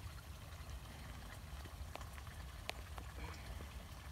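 Wet cast net being drawn in from a river by hand, water trickling and dripping from the mesh with a few sharp little drips and splashes, over a low rumble.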